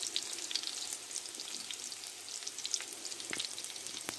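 Pork-and-beef mince cutlets sizzling in hot oil in a frying pan: a steady hiss with frequent small crackles and pops of spitting fat.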